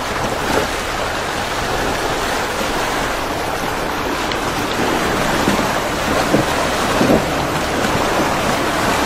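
Shallow river water rushing and splashing against a 4x4's wheel and body as it drives through a stream crossing, heard close to the wheel. A steady rush, with a few louder splashes in the second half.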